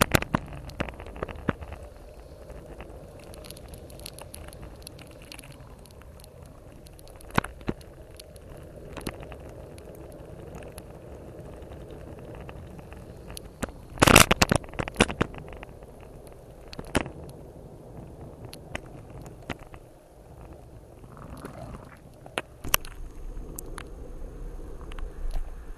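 Muffled, steady rumble of a road bike rolling on a wet road, heard through an action camera's sealed waterproof housing. Scattered sharp clicks and knocks sound throughout, with a loud cluster of them about halfway through.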